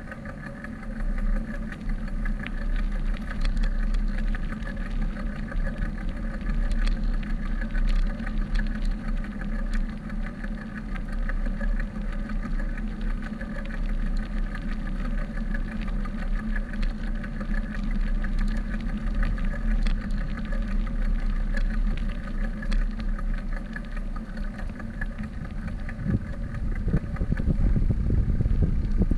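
Bicycle riding on asphalt: low rumble from wind and tyres on the handlebar-mounted camera, a steady hum under it, and scattered light clicks and rattles from the bike.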